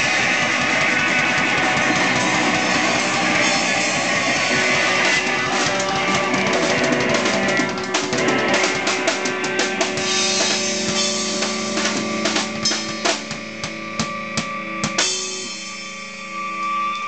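Live rock band with drum kit and guitar playing a full-band passage. About halfway through it breaks into a string of separate drum and cymbal hits, closing the song, and near the end held guitar notes are left ringing.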